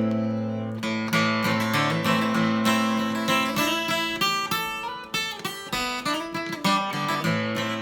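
Acoustic guitar playing a folk song's instrumental introduction: strummed chords, with a run of quick single picked notes in the middle.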